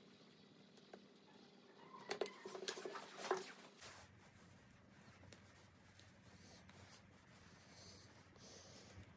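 Faint clicks and rustles of small plastic frame fittings handled in the fingers. The clicks come in a cluster about two to three and a half seconds in, over quiet room tone.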